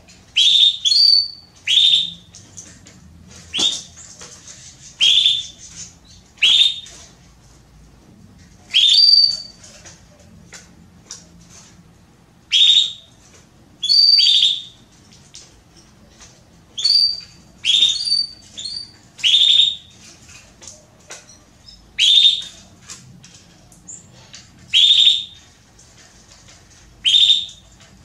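A female Belgian (domestic) canary repeating a short call that sweeps quickly down in pitch, about every one to three seconds and now and then in quick pairs. It is the calling of a hen in breeding condition soliciting a male to mate.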